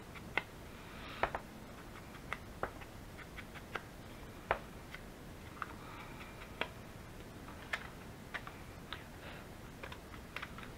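Irregular light taps and clicks of paper pieces and small crafting tools being handled and set down on a work table, a few quick ticks every second or so.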